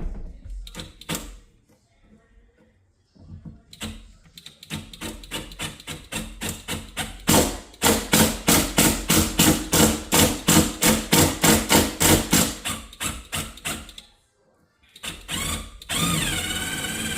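Electric drill with a small bit boring a pilot hole through a door: a rapid, even knocking, about three to four a second and growing louder, then a steady motor whine near the end.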